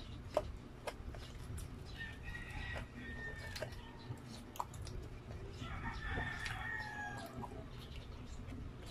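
A rooster crowing twice in the background, each crow about a second long, over close-miked chewing of pizza with wet mouth clicks.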